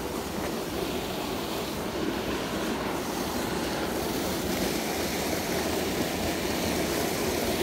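Steady rush of fast-flowing stream water, growing gradually louder toward the end.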